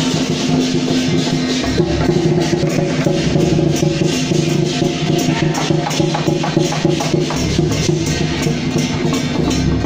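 Procession music: lion-dance drumming and percussion beating steadily over a sustained, held melody.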